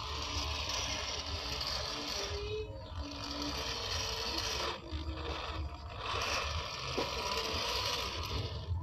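Small electric motor and geared drivetrain of a 1/10-scale RC rock crawler whining as it drives, the whine shifting in pitch and starting and stopping as the throttle changes.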